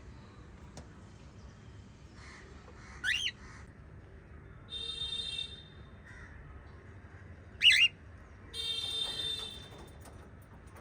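Small pet parrots calling: two loud, short calls that sweep up and down in pitch, about four and a half seconds apart, each followed by a longer, rougher call.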